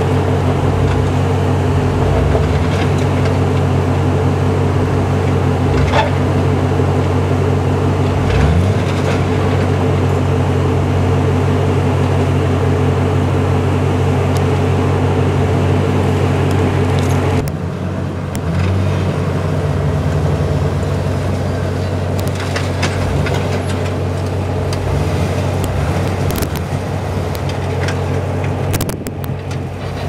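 Engine of a rock-crawling 4x4 running at low, steady revs as it creeps over boulders, with a couple of brief rises in revs. Just past halfway the sound changes abruptly and drops slightly in level.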